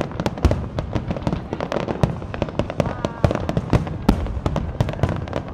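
Aerial fireworks display going off in rapid succession: many sharp bangs and crackles, several a second and overlapping, over a continuous low rumble.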